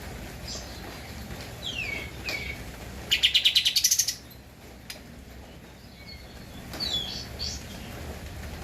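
Kapas tembak songbird singing: short falling whistled notes, then a loud fast chattering trill of about ten notes in a second around the middle, then more falling notes near the end.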